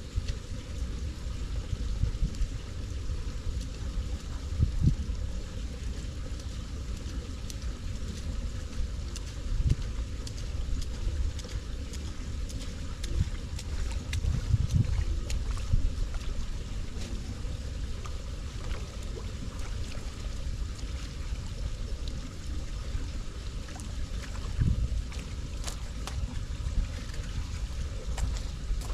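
Wind buffeting the microphone: a steady low rumble that swells in gusts several times.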